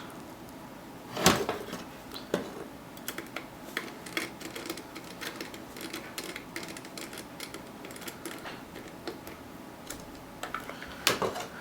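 Screws being driven by hand into a PC case's drive cage: a run of light, irregular clicks and ticks, with a louder clack about a second in and another shortly after.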